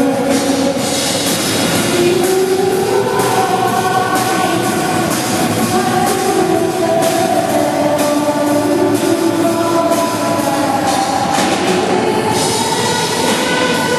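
Rock band playing live at a sound check: drums hitting steadily under held, shifting chords from the band's instruments, full and loud.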